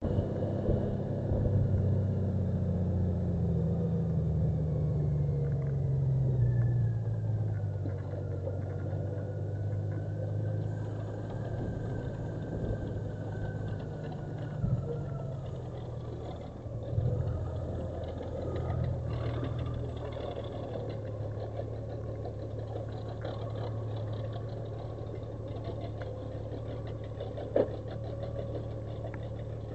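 Honda CBR1000RR-R Fireblade (SC79) inline-four engine idling, its idle speed dropping over the first several seconds and then holding steady, with a few brief sharp knocks along the way. It is making an abnormal noise that the owner calls bad and that Honda is investigating.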